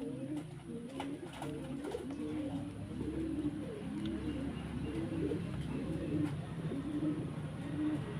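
Dove cooing over and over: low, soft coos that rise and fall, about one a second.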